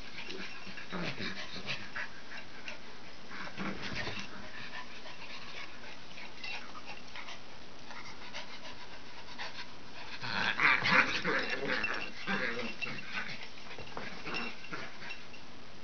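Two Norwich terriers play-fighting, with scuffling and short dog vocalizations. A louder flurry comes about ten seconds in.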